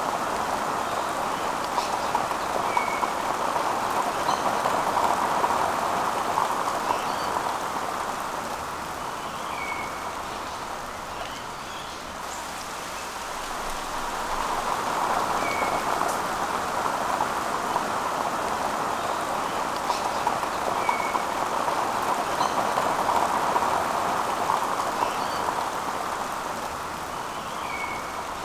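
Steady rain falling, a hiss that swells and eases over roughly ten seconds at a time, with a short faint chirp every five to seven seconds.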